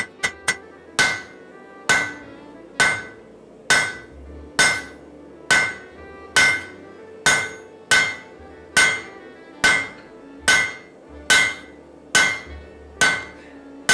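Cross-peen hammer, struck with its peen, drawing out a red-hot steel axe blade on an anvil. A few quick light taps open it, then steady heavy blows come just under one a second, about fifteen in all, each with a short metallic ring.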